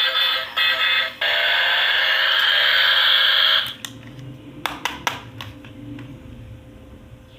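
Electronic buzzing sound effect from a battery-powered toy's small speaker. It breaks off twice briefly, then stops suddenly about halfway through. A few light plastic clicks of the toy being handled follow.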